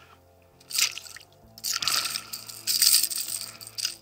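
A small pike splashing and thrashing at the water's surface as it is grabbed by hand and lifted into the boat, in three short bursts.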